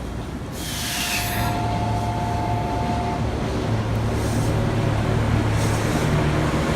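A train approaching and running by, its rumble and low hum growing louder. Near the start there is a short hiss and two steady tones sounding together for about two and a half seconds.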